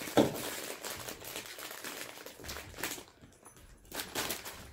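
Plastic snack bag crinkling as it is handled and opened, with a brief thump just after the start.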